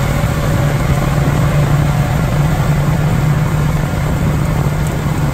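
Mercury tiller outboard motor running steadily at cruising speed, pushing an aluminum johnboat across open water, with a low hum under a steady rushing noise.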